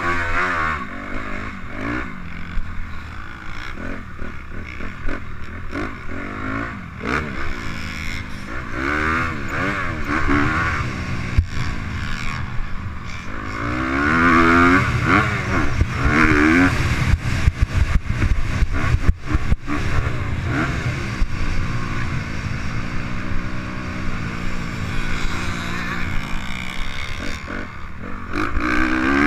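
Youth motocross dirt bike's engine, heard from on board, revving up and down as the rider races around the track, the pitch rising and falling with each throttle and gear change, loudest about halfway through and again near the end.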